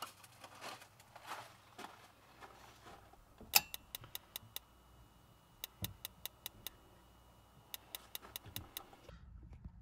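Spark igniter on an RV absorption refrigerator's propane burner clicking in three quick runs of about six or seven clicks a second as it tries to light the freshly cleaned burner.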